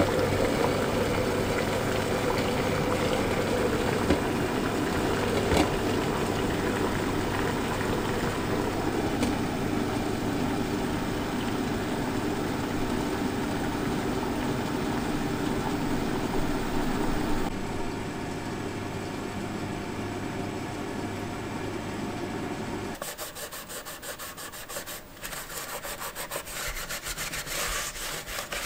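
Water boiling under an empty bamboo steamer on high heat: a steady dense hiss with a low hum. About 23 seconds in this gives way to a dry cloth rubbing over the steamer's bamboo rim and slats.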